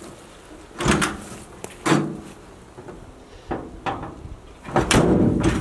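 Rear cargo door of a 1966 Chevrolet C10 panel truck being worked and shut: sharp clunks about a second apart, then the loudest, longer clatter near the end as the door closes and latches after sticking.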